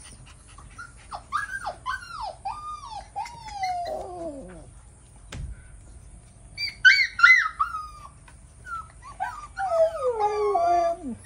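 Husky puppies whining and crying: a run of short whines that fall in pitch, a pause, then higher whines, and near the end a long cry sliding down in pitch like a small howl.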